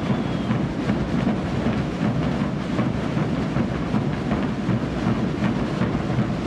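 Massed Portuguese bass drums (bombos) of a festival drum group beating together in a dense, continuous rolling rumble.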